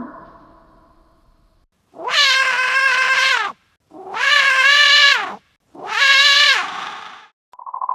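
Alien-creature call sound effect: three long, cat-like calls, each about a second and a half. In each, the pitch rises at the start, holds and then drops away at the end.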